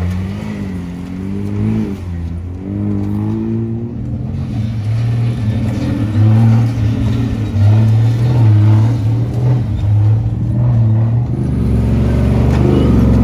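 Off-road race buggies' engines revving as they drive past one after another, the pitch rising and falling with the throttle. A second, louder engine takes over about six seconds in, and another builds near the end.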